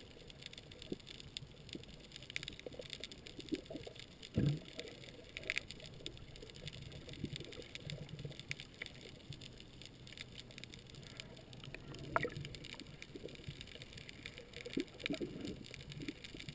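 Underwater ambience as heard by a camera just below the surface: a steady muffled hiss with many faint scattered clicks and crackles, and a single louder knock about four seconds in.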